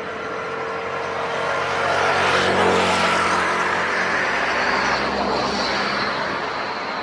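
Airbus A320-214 on approach passing low overhead, its CFM56 jet engines giving a roar that swells to a peak about two and a half seconds in and then eases off. A high engine whine falls slowly in pitch as the aircraft moves away.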